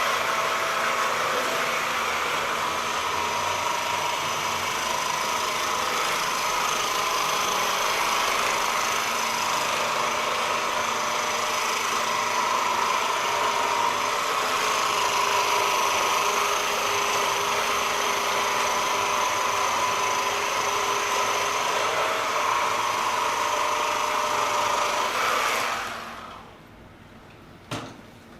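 Electric percussion massage gun running steadily with a motor whine, then switched off suddenly about 26 seconds in.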